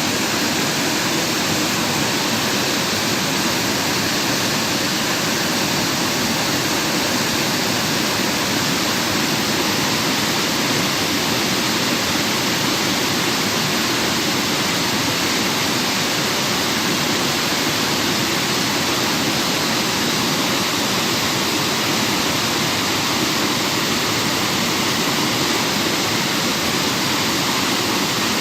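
Waterfall: water pouring and splashing in a steady, loud, unbroken rush.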